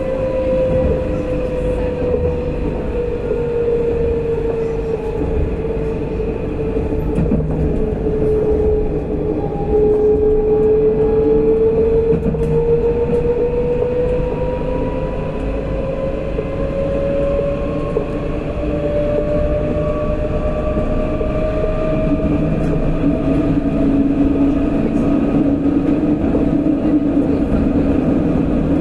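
Alstom Citadis 402 tram running at speed, heard from inside the car: a steady rumble of wheels on rail under the electric traction whine. The whine sinks a little in pitch over the first third, then rises steadily as the tram picks up speed.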